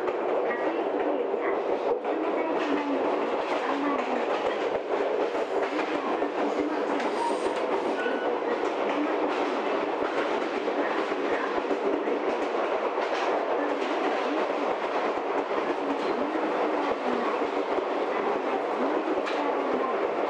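Steady running noise of an Ichibata Electric Railway train heard from inside the carriage: the rumble of wheels on rail, with clicks from the rail joints.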